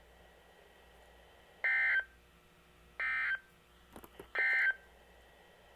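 Three short bursts of Emergency Alert System SAME data tones, each about a third of a second long and a little over a second apart: the end-of-message code that closes a weather-radio severe thunderstorm warning.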